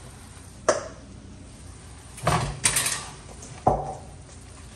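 A spatula knocking and scraping against a nonstick skillet while breaking up and stirring browning ground meat: a sharp knock about a second in, a short rough scrape a little after two seconds, and another knock near the end.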